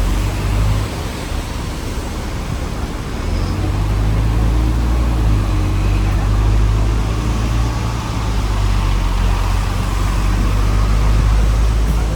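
Hong Kong double-decker tram running, heard from on board: a steady low rumble of motors and steel wheels on rails, growing louder about three seconds in.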